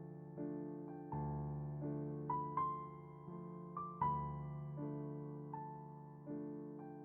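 Slow, gentle piano music: single notes and soft chords struck about once a second, each left to ring and fade before the next.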